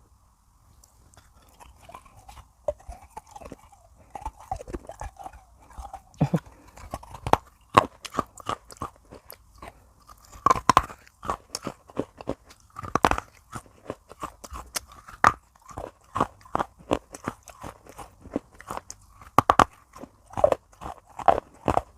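Close-miked chewing of pieces of baked clay pot: a dense run of sharp, irregular crunches that begins about a second in, with a few louder bites along the way.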